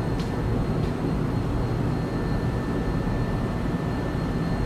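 Steady low mechanical rumble of a heavy-truck workshop's background noise, with a faint high steady whine and a couple of light ticks.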